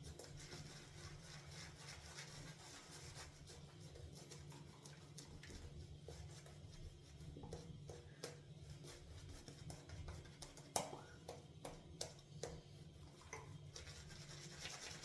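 Faint scratchy rubbing of the Semogue 830 boar shaving brush's bristles worked over a tub of hard shaving soap to load it, with a few light taps, most of them in the last few seconds, over a low steady hum.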